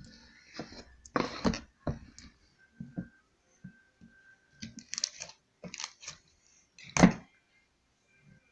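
Slime being squeezed and stretched by hand, making irregular wet clicks and squelches, with one louder squelch about seven seconds in.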